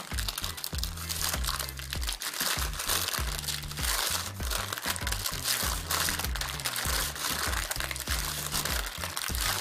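Parchment (baking) paper crinkling and rustling as hands roll dough up inside it, over background music with a steady bass line.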